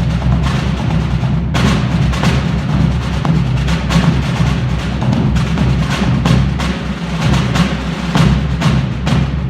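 Army concert band playing an instrumental passage driven by busy percussion: quick, uneven drum and block strikes over sustained low notes.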